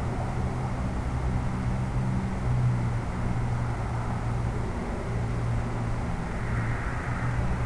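Model airplane's electric motor and propeller running steadily in flight, a low hum with a rushing hiss of wind and prop wash above it.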